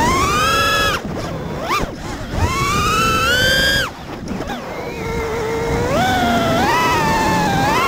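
Brushless motors and propellers of a 5-inch FPV freestyle quadcopter whining, the pitch climbing and sagging with the throttle. The whine drops away abruptly about a second in and again near four seconds as the throttle is chopped, then rises again.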